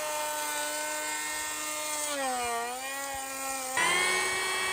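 Makita DKP181 18V brushless planer running at speed with a steady high whine. About two seconds in, the pitch sags as the blades cut into wood, then it jumps back up and gets louder near the end as the cut comes off.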